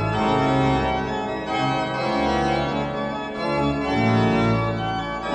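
Background music: slow, sustained held chords that change every second or so.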